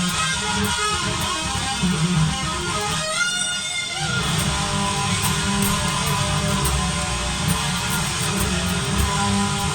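Distorted electric guitar playing, a Jackson Kelly KE3 through freshly installed clone pickups styled on the Amazon Invader. About three seconds in, one phrase slides and falls in pitch.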